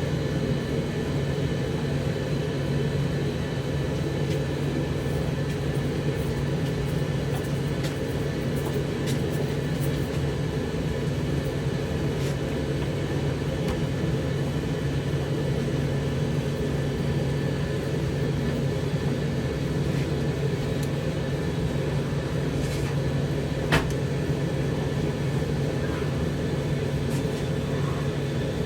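Zanussi TD162 compact tumble dryer running: a steady low motor and fan hum as the drum turns, with an occasional light click.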